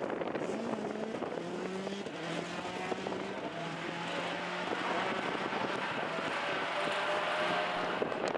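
Citroën C4 WRC rally car's turbocharged four-cylinder engine pulling away under power, its pitch holding and then shifting in steps as it changes gear.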